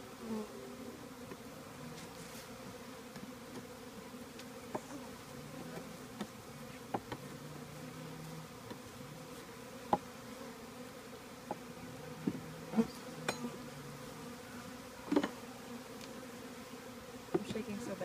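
Honey bees buzzing steadily around an open hive during a package installation. A few light sharp knocks come every couple of seconds as the wooden hive frames are slid and pressed together.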